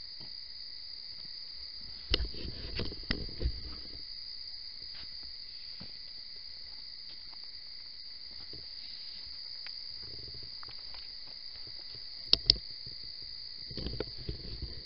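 Steady night chorus of insects chirping, with a cluster of thumps about two seconds in and two sharp clacks about twelve seconds in.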